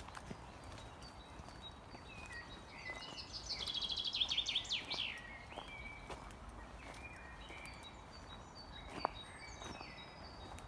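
Songbirds singing in woodland, one bird close by with a loud song of rapid, falling notes about three to five seconds in, and other birds calling more quietly throughout. Faint footsteps on a bark-mulch path sound underneath.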